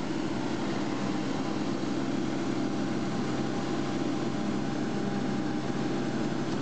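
Claas self-propelled forage harvester chopping maize at close range: its engine and chopping gear running in a steady, unbroken drone with a constant hum, together with the engine of a tractor running alongside.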